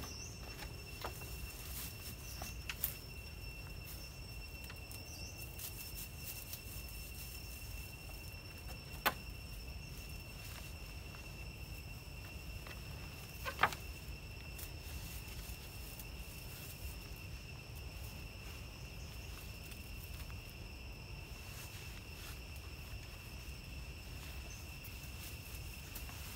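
Steady high insect trill, one unbroken tone throughout, over a low outdoor rumble. A few sharp clicks or knocks break in, the loudest about 13 seconds in.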